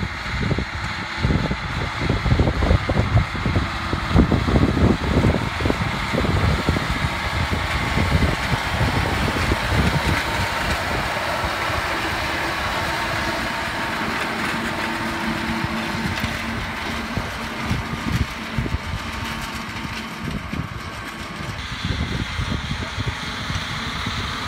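John Deere 6155R tractor's six-cylinder diesel running under load while it pulls a Pöttinger Torro loader wagon, with the wagon's pickup and rotor whirring as they gather cut grass. A heavy uneven low rumble in the first half gives way to a steadier whirring hiss.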